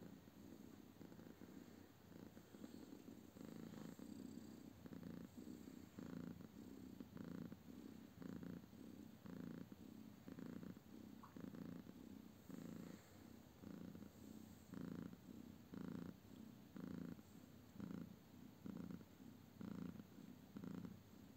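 Mother cat purring softly while nursing newborn kittens, a steady, even rhythm of about two pulses a second.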